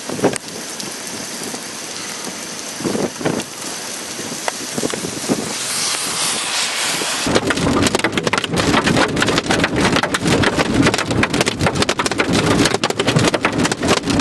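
Heavy thunderstorm rain, a steady hiss at first, then from about seven seconds in a dense, louder rattle of drops hitting a surface.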